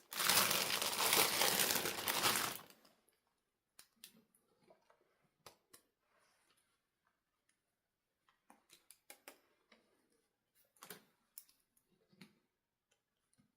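Packaging crinkling as it is handled, loud for about the first two and a half seconds, then stopping; after that only scattered small clicks and light taps.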